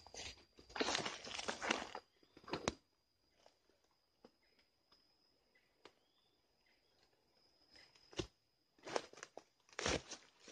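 Footsteps through dry leaf litter and undergrowth, crunching and rustling in two spells: for the first few seconds, then again from about eight seconds in, with a quiet pause between.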